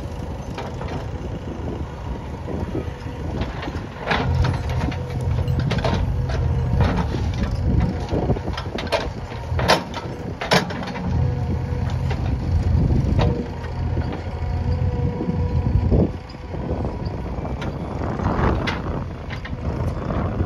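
JCB backhoe loader's diesel engine running, its rumble swelling and easing as the load comes and goes, with scattered sharp knocks.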